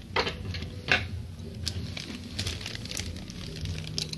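Short metallic scrapes and light clicks as a tool and hands work on an industrial overlock machine. Two stronger scrapes come near the start, then scattered faint ticks, over a low steady hum.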